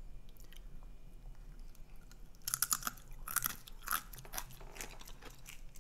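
Crisp chips being bitten and chewed, quiet at first, then a run of loud crunches from about two and a half seconds in.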